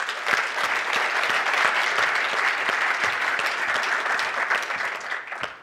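Audience applauding, many hands clapping steadily, dying away shortly before the end.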